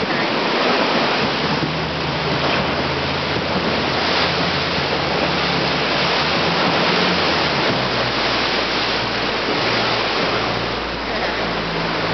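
Sea water surging and splashing in a sea cave, with a steady rush of surf and wind. Under it runs the low, steady hum of the inflatable boat's outboard motor, which shifts pitch about eight seconds in.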